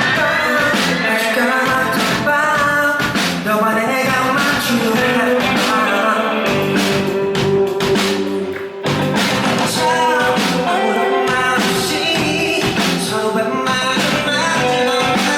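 A rock band playing live: a lead vocal singing over electric guitar, bass and drums.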